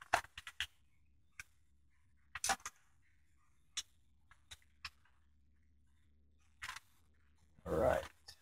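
Scattered light clicks and knocks from an AR-15 rifle and its magazine being handled, with a louder dull thump near the end.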